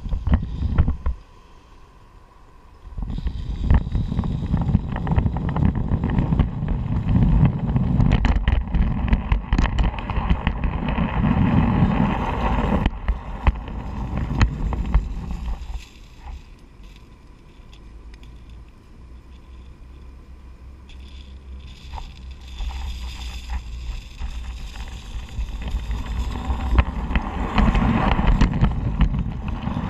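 Miniature railway train running along the track: a rolling rumble with frequent clicks and clatter from the wheels on the rails, with wind on the microphone. It sets in about three seconds in, drops much quieter for several seconds midway, then builds up again.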